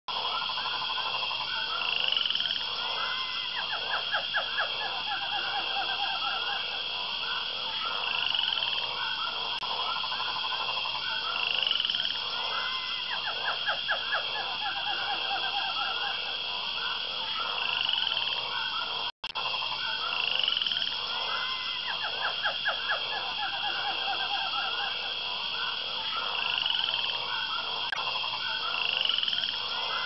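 A chorus of animal calls: repeated rapid pulsed trills, with a short rising chirp every few seconds over a steady high hum. The sound drops out for a moment a little past halfway.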